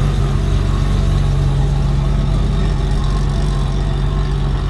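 A 1968 Chevrolet C10's 250 inline-six engine running steadily at low speed as the truck drives slowly by, a constant low engine note.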